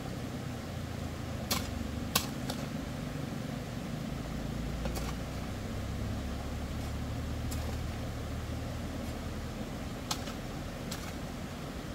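A metal-bladed digging tool striking and scraping sand and gravel, giving about eight sharp, separate clinks, the loudest about two seconds in. A steady low drone runs underneath.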